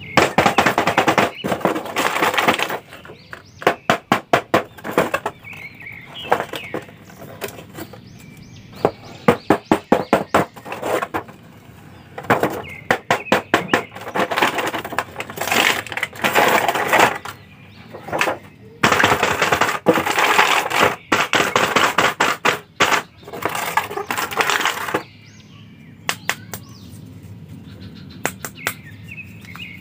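Thin plastic toy packaging crackling and clicking as it is handled and opened: the clear window of the box and the moulded blister tray holding the action figures. Several spells of dense crackling come with separate sharp clicks between them.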